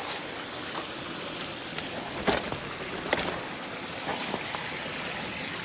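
Steady rushing of wind and tyre noise as a mountain bike is ridden over a trail, picked up by a chest-mounted action camera. A few sharp knocks or rattles from the bike cut through, the loudest about two seconds in.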